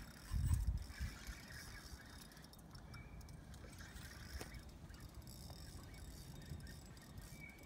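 Fishing reel being cranked as a hooked striped bass is played on an ultralight rod: a faint mechanical whir with small ticks. There is a low thump about half a second in.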